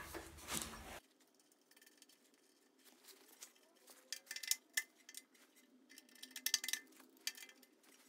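Faint, scattered metallic clicks and clinks as a hand tool tightens the mounting nut of a toggle switch on a steel switch box, mostly in the middle and latter part.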